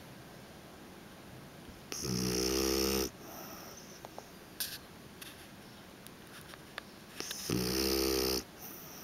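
A sleeping French bulldog snoring: two loud snores about five seconds apart, each drawn out for about a second.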